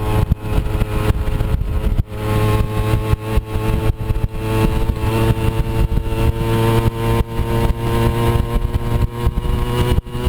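Moped scooter's small engine running steadily under way on a rough off-road trail, its pitch fairly even, with many short knocks and rattles over it. The engine sound dips briefly about two seconds in.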